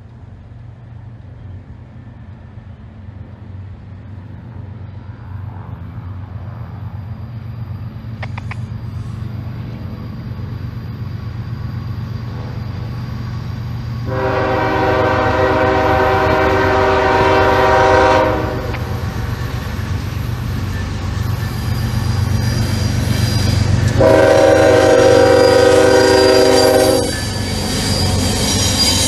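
Approaching CSX freight train: the diesel locomotive's rumble grows steadily louder, and its air horn sounds two long blasts, the second about ten seconds after the first, as the locomotive draws up and passes.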